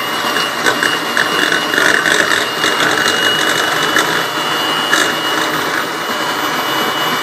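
Electric mixer running steadily, its beaters whirring through butter as it is beaten until fluffy.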